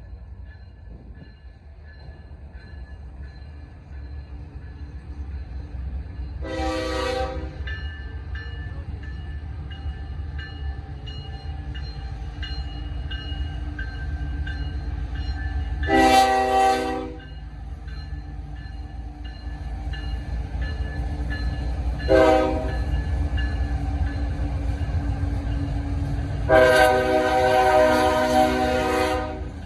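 Diesel freight locomotive air horn sounding four chord blasts, the first three short and the last held about three seconds. A steady low rumble grows louder throughout.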